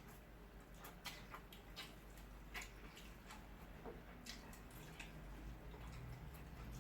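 Faint eating sounds: a few soft, wet mouth clicks and smacks spaced irregularly, over a low steady hum.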